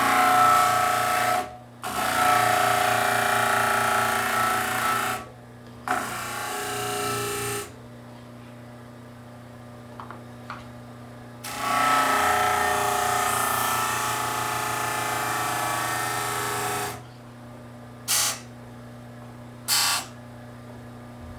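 Stationary power sander running steadily while a small glued-up wooden piece is pressed against it in several passes to round its curves; each pass brings a loud rasping grind over the motor's hum, with two brief touches near the end.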